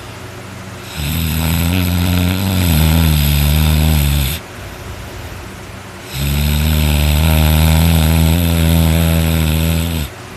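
A person snoring very loudly: two long, rough, low-pitched snores, the first starting about a second in and the second about six seconds in, each lasting three to four seconds.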